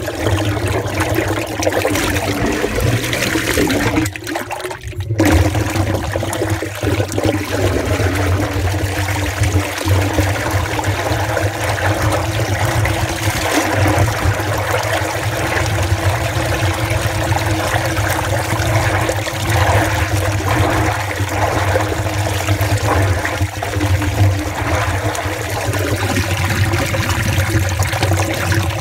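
Wastewater rushing steadily through a sewer pipe into the main drain at the boundary shaft, the flow of a blocked sewer that has just been cleared. The rush dips briefly about four seconds in.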